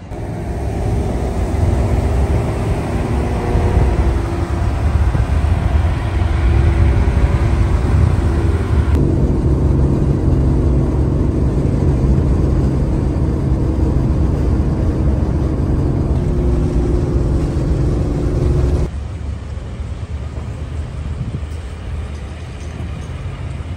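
A car's engine and road noise heard from inside the cabin while cruising on a highway: a steady low drone with a held engine hum. The sound changes abruptly twice, about nine and nineteen seconds in, and the last part is quieter.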